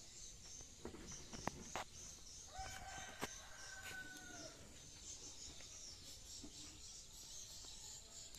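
A rooster crows once, faintly, starting about two and a half seconds in and lasting about two seconds, its pitch falling slightly at the end. A few sharp knocks come before it, over a steady high hiss.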